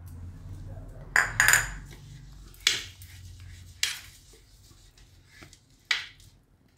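Aluminium baking pan being greased with ghee, with a silicone pastry brush: a handful of sharp metallic clinks and knocks as the pan and brush are handled, the loudest a little over a second in.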